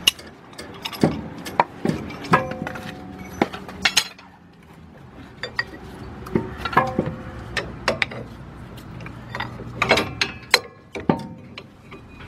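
Irregular metal clinks and knocks, some ringing briefly, as a steel C-clamp and an old brake pad are fitted against a disc brake caliper to push its piston back.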